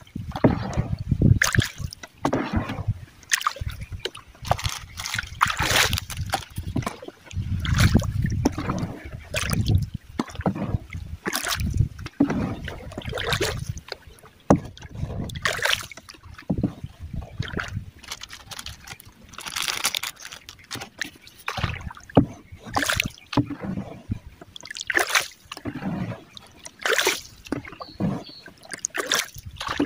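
Wooden canoe being paddled: the paddle dips and splashes in the water in irregular strokes about every one to two seconds, over low rumbling noise.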